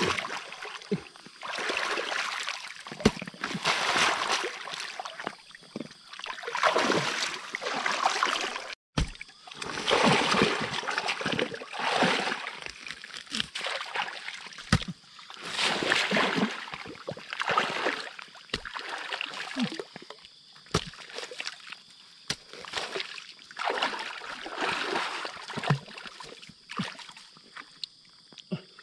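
Water splashing and sloshing in irregular bursts as a man digs with a pickaxe and his hands into a muddy riverbank while standing in shallow water, with a few sharp knocks scattered through it.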